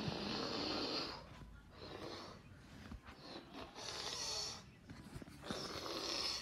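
A child's breathy whooshing mouth sound effects: four long hissing breaths of about a second each, with short pauses between.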